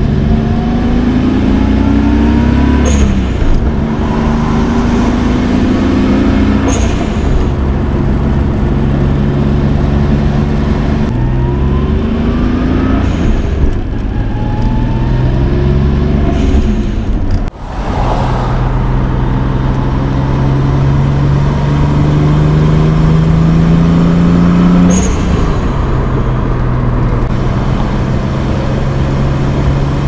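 Nissan R32 Skyline GTS-T's turbocharged RB20DET inline-six pulling through the gears, its pitch climbing and dropping at each of about five shifts. The new intake can be heard sucking air under load, and the blow-off valve lets go briefly each time the throttle is lifted.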